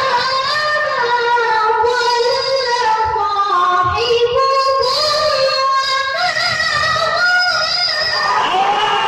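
A child qari chanting Quranic recitation in a high voice through a PA microphone, holding long ornamented notes that waver up and down. Near the end the audience starts calling out.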